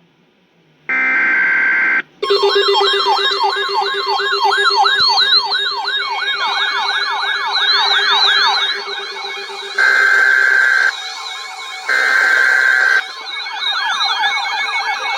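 Emergency alert broadcast: a buzzing digital data burst (SAME header) of about a second, then a fast siren-like wailing alert tone at several pitches at once, with two more one-second data bursts near the end, repeated headers in a row.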